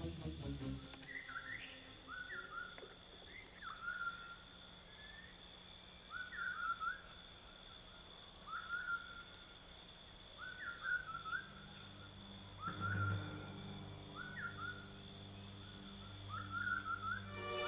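A bird calling again and again, a short dipping chirp every one to two seconds, over faint insect-like ticking and a thin steady high tone. Low sustained music tones come in about two-thirds of the way through.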